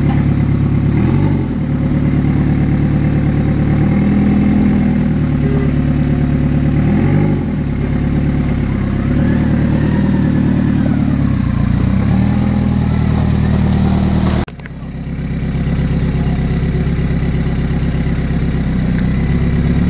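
Rock-crawling buggy's engine running at low revs, rising and falling in several short throttle blips as it crawls over rocks. The sound breaks off abruptly about two-thirds of the way through and comes straight back.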